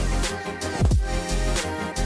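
Background music: an electronic beat with deep bass notes that slide down in pitch.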